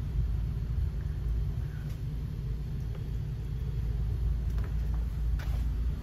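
Steady low mechanical rumble, with a few faint clicks about two seconds in and near the end.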